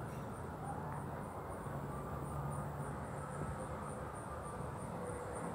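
Outdoor ambience: a steady low hum with insects chirping high-pitched in an even pulse, about three times a second.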